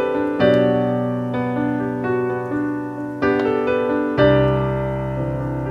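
Solo piano music, a slow piece with a new note or chord struck about once a second and left ringing.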